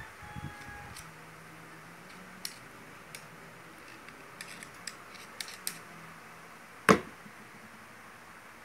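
Light metallic clicks and scrapes of a screwdriver tip against an electric drill's armature as grease is worked onto it, then a single louder knock about seven seconds in.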